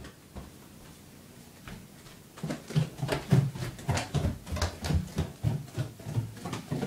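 Quick, irregular thumps and rustles, about three a second, starting a couple of seconds in after near quiet: movement and handling noise from someone walking with a hand-held camera.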